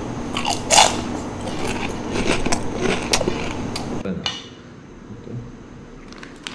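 Kitchen handling noises: scattered clicks and taps of fingers and a spoon against a stainless steel bowl and crisp fried puri shells as fuchka are filled, with one sharper knock about a second in. A background hiss cuts off abruptly about four seconds in.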